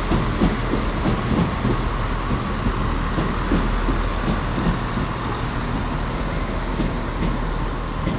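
Chiltern Railways Class 168 diesel multiple unit idling steadily, with its underfloor diesel engines giving a constant low hum.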